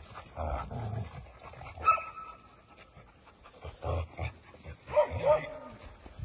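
A group of dogs panting, with a few short whines.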